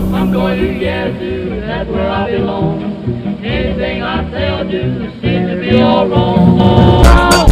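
Background song with a singing voice over a steady beat; the drums grow louder near the end.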